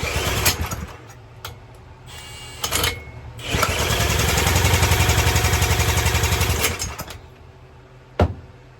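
Small Briggs & Stratton 3.75 HP single-cylinder engine being spun over and catching on brake cleaner. It runs with a rapid even pulse for about three seconds, then dies out because it won't keep running on the brake cleaner. A sharp knock follows near the end.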